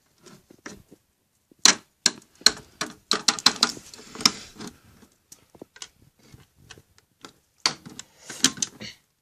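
Quick clicks and knocks from a washing machine being handled, coming in two busy clusters, one early and a shorter one near the end.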